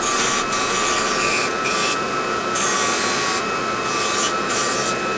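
Central Machinery narrow-belt sander running with a steady whine while a wooden panel is pressed against the belt to round off its corners; the scratchy sanding noise swells and drops every half second or so as the wood is worked on and eased off the belt.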